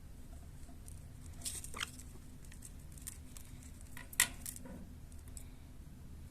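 A few scattered light clicks and scratches, with a small cluster about one and a half seconds in and a sharper click about four seconds in.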